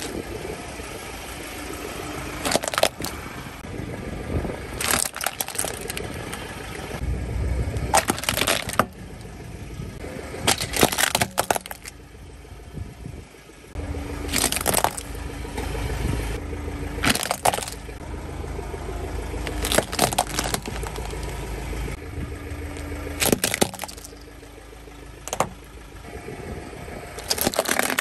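Hard plastic toy excavator cracking and snapping as a car tyre rolls onto it and crushes it: a dozen or so sharp cracks spread through, some in quick pairs. A low rumble from the slowly moving car runs beneath, strongest in the middle stretch.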